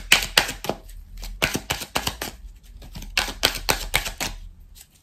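A deck of oracle cards being shuffled by hand: quick runs of crisp card clicks and flicks, in three or four bursts with short pauses between.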